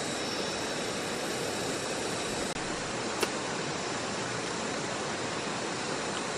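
Steady rushing of a rocky forest stream, with one short click about three seconds in.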